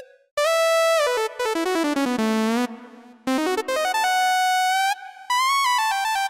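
A keyboard lead patch playing a single melody line: quick stepwise runs down and then up, notes sliding into one another, and held notes with vibrato, with a short break just after the start and another around the middle.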